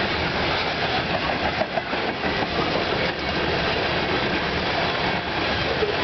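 Loaded tank cars of a freight train rolling past close by: a steady, loud rush of steel wheels on rail.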